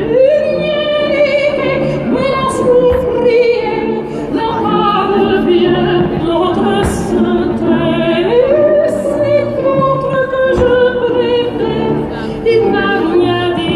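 Operatic singing over orchestral music: a voice rising into long, held notes with a wavering pitch. A few sharp firework bangs cut through it.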